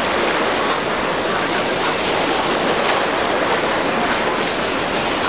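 Steady rush of surf breaking in rough seas, with wind.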